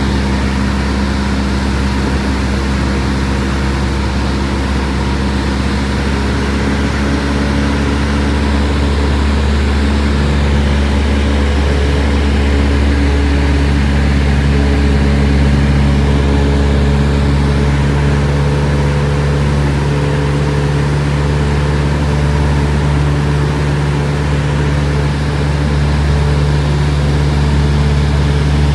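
Aircraft engine droning steadily, heard from aboard in flight, with a slight change in its tone about 13 seconds in.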